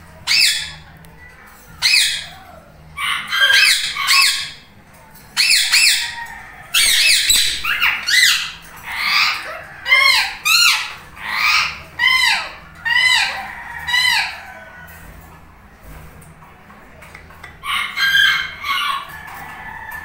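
Indian ringneck parakeets squawking in a rapid run of short, shrill calls that rise and fall in pitch. The calls pause about fifteen seconds in, then a few more follow near the end.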